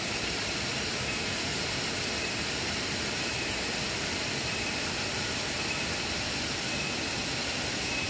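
Steady, even rushing of a nearby waterfall, a continuous noise of falling water.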